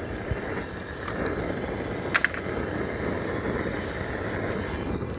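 Gas torch burner fed from a gas cylinder running with a steady rushing flame as it lights leaves and twigs. A couple of sharp snaps come about two seconds in.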